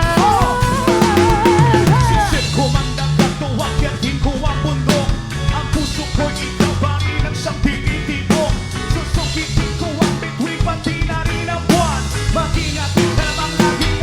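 Live reggae band playing a passage of a song: drum kit and bass keep a steady groove under a lead melody line.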